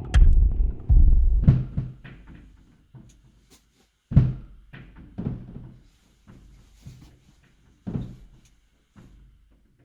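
A series of heavy thuds and knocks at irregular intervals, roughly eight of them. The loudest come near the start and about four seconds in, with quiet gaps between.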